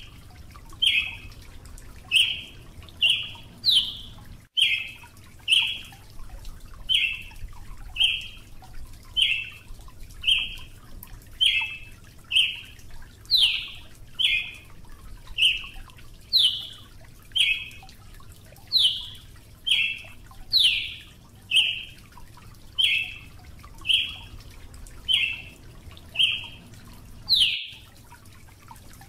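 Brazilian tanager calling: a steady series of short, sharp notes, about one a second, some of them sliding higher. The sound cuts out briefly twice.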